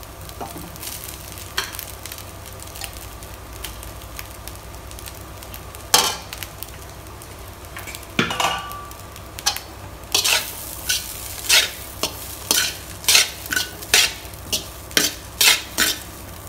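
Rice with fried cabbage and egg sizzling in a metal wok as a steel slotted ladle stirs it. From about ten seconds in, the ladle scrapes and knocks against the pan about twice a second.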